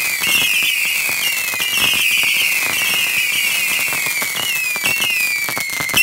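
Saturn missile battery firing: a rapid run of small whistling rockets, each shrill whistle falling in pitch and overlapping the next, with sharp pops and crackles between them.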